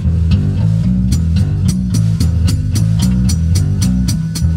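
Rockabilly band playing an instrumental passage live: a repeating bass line and guitar over drums keeping a steady beat of about four hits a second.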